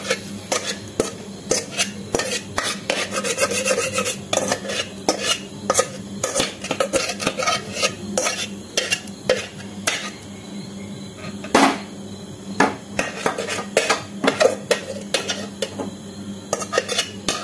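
A metal spoon repeatedly scraping and clinking against a metal bowl and kadhai as cooked dal is scraped out into the pan, in many short, uneven strikes.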